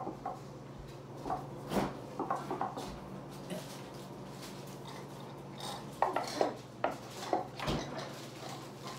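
Scattered clinks and knocks of dishes and utensils being handled, a few at a time with short gaps, over a steady low hum.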